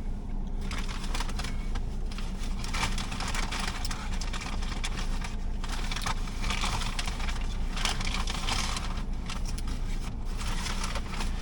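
Crinkling and rustling of a paper food wrapper and packaging, in irregular handfuls, over the steady low hum of a car cabin.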